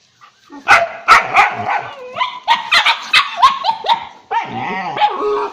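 A dog barking and yipping in a quick run of short, sharp calls, about two or three a second, starting about half a second in.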